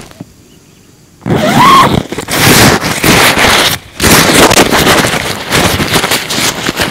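Loud rustling and crinkling of a tent and its fabric being unpacked and handled, starting about a second in, in irregular surges with a short pause near the middle.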